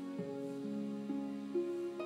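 Background music: a slow melody of held notes.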